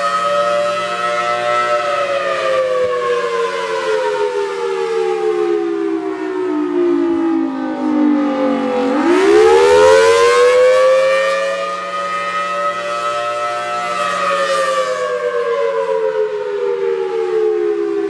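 Federal Signal Thunderbolt 1003A outdoor warning siren sounding the attack signal. Its two-tone chord slides slowly down in pitch, swoops back up about halfway through, where it is loudest, holds high, then starts falling again a few seconds before the end.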